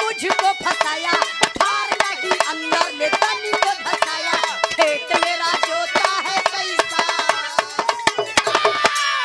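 A woman singing a Bhojpuri birha folk song into a microphone over quick hand-drum strokes, ending on a long held note that slides down.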